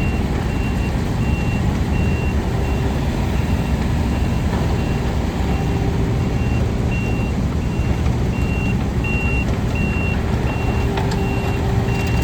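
Kubota KX91-3 mini excavator running, its diesel engine going steadily, while its travel alarm beeps about twice a second.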